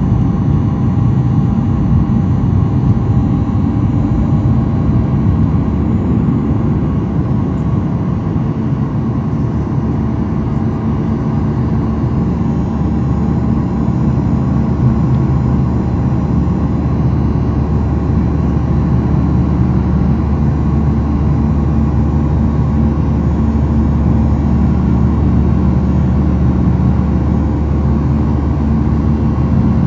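Steady drone of a Boeing 737-800's CFM56 jet engines and airflow, heard inside the passenger cabin in flight: a deep rumble with a few faint steady whines above it.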